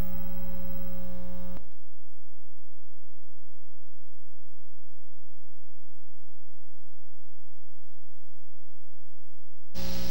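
Loud, steady electrical mains hum on a blank stretch of videotape between recordings. It sounds buzzier for the first second and a half, then settles into a plainer low hum. It cuts off near the end as music returns.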